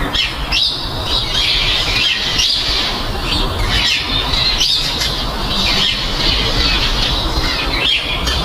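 Birds squawking and chirping in many short, high, overlapping calls, continuous over a steady rushing noise.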